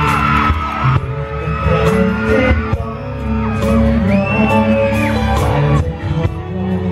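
Live Thai pop song played loud through a stage PA, with a singer's voice over the band.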